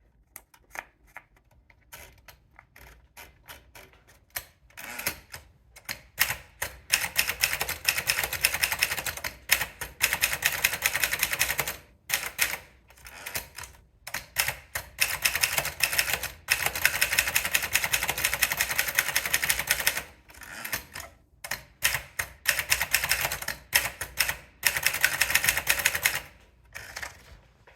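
Underwood 23 typewriter being typed on: a few spaced keystrokes for the first several seconds, then fast runs of key strikes broken by short pauses.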